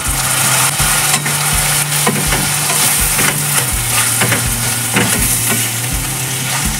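Onions and green peas sizzling in butter in a stainless steel wok while a spatula stirs them, scraping and knocking against the pan about two or three times a second, over a steady low hum.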